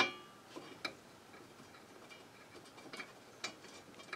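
Light metal clicks from a bolt and the brake dust shield being handled as the shield bolts go in: one sharp clink with a short ring at the start, then a few faint scattered ticks.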